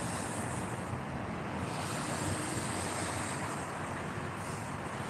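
Steady rushing outdoor background noise without a clear single source, like wind and distant traffic on a phone microphone.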